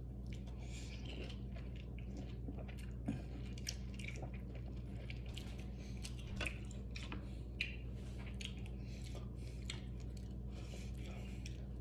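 A person chewing and biting food, with scattered wet clicks and squishes as orange segments are pulled apart and eaten, over a steady low hum.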